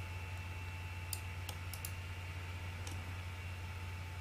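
A few scattered computer mouse clicks, sharp and light, over a steady low hum.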